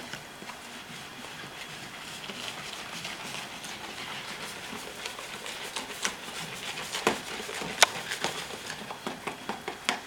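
Foamy beer batter in a bowl fizzing with a steady soft hiss as the foam settles, with a few sharp clicks, two louder ones about seven and eight seconds in.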